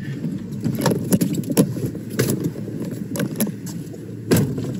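Storm-chase vehicle driving on a rough road, heard from inside the cab: a steady road rumble broken by repeated knocks and rattles.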